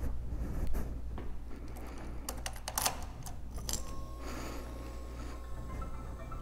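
Scattered small clicks and rattles as a rider handles a motorcycle (keys, switches, controls) before starting it, with a faint steady whine for about two seconds midway.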